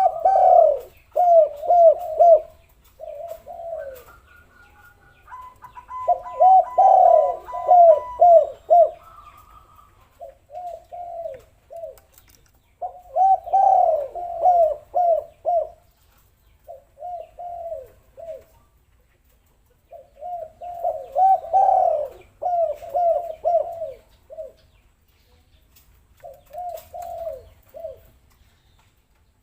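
Doves cooing in repeated phrases of several quick notes, each bout separated by pauses of a second or two: a tekukur/derkuku lure call meant to set other doves singing.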